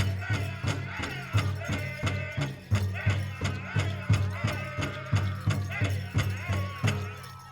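Powwow drum group singing over a big drum struck in steady unison beats, about two beats a second; the song ends with a last beat near the end.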